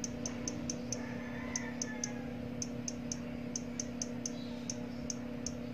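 Samsung Galaxy A30s phone sounding short, high touch-feedback clicks as a finger taps its blacked-out screen, about three to four a second in uneven runs. The clicks show the phone is still alive although its AMOLED display has gone black. A steady low hum runs underneath.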